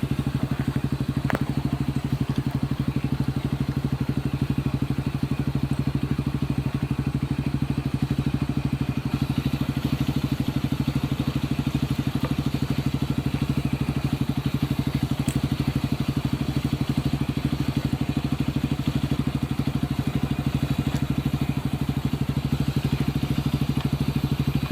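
Honda CRF150L's single-cylinder four-stroke engine idling steadily through an aftermarket Yoshimura exhaust, with no revving.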